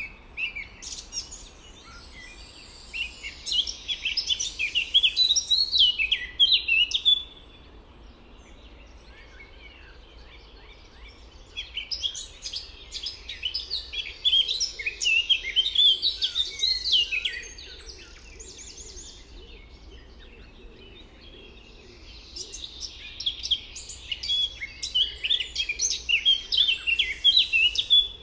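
A songbird singing three long songs of fast, high, twittering notes, each about six seconds, with pauses of several seconds between them, over a faint steady outdoor background.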